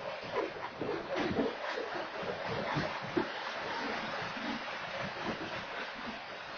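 Freight train cars rolling past at a grade crossing: a steady rushing noise of wheels on rail with scattered low clunks and rattles, heard through a security camera's microphone.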